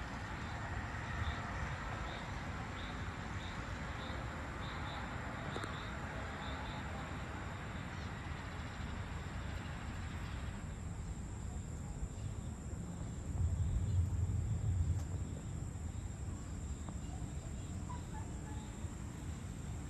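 Outdoor evening ambience of insects: a steady high-pitched insect drone, with faint chirps about twice a second in the first third. Under it runs a hiss that cuts off suddenly about halfway, and a low rumble that swells briefly about two-thirds of the way through.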